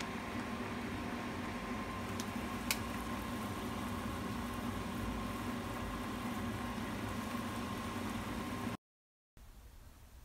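A pot of instant noodles boiling on a stove, under a steady mechanical kitchen hum, with two sharp clicks about two seconds in. It cuts off suddenly near the end, giving way to much quieter room tone.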